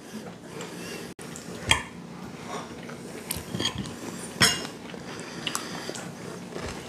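Cutlery clinking and scraping on dinner plates as people eat, with scattered small clinks and two sharper ones, about one and a half and four and a half seconds in.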